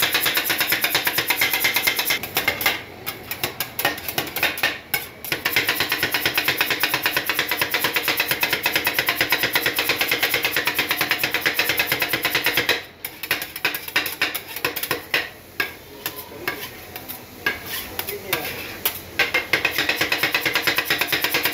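Two steel spatulas chopping and scraping rapidly on the stainless-steel cold plate of a rolled ice cream pan, a fast clatter of metal on metal as rasgulla is mashed into the freezing ice cream base. The clatter breaks off briefly twice in the first few seconds and goes quieter and more broken for a stretch in the second half.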